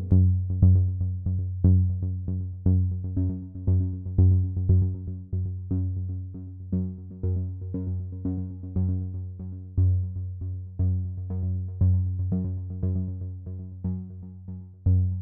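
Electronic background music: short synthesizer notes in a steady rhythm over a deep bass pulse.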